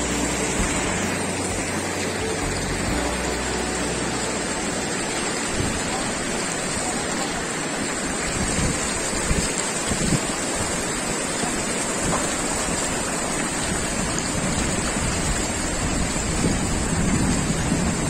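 A fast, shallow mountain stream rushing over rocks, a steady even sound of running water.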